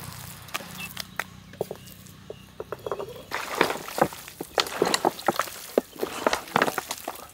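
Hands kneading and mixing raw mutton pieces coated in spice and nut paste: a run of short wet squelches and clicks, sparse at first and much busier from about three seconds in.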